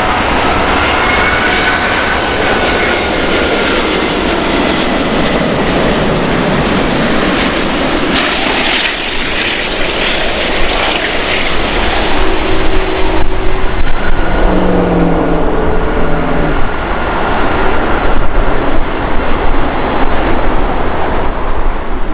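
Airbus A380's four Rolls-Royce Trent 900 turbofans on final approach: a steady, dense jet roar with high whining tones over it. About twelve seconds in, as the main gear touches down, the roar grows louder and more uneven.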